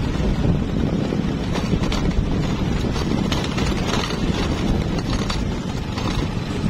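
Wind buffeting the microphone: a steady low rumble with faint scattered knocks.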